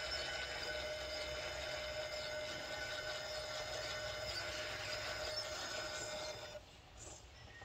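RC rock crawler's 2700 kV brushless motor and transmission running at crawl speed, a steady whine of several fixed pitches that stops about six and a half seconds in.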